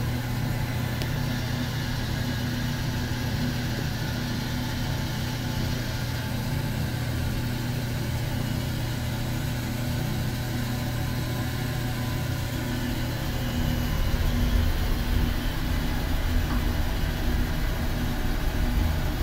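Large sawmill machinery running with a steady low hum, heard from inside the operator's cab; a deeper rumble grows louder about two-thirds of the way through.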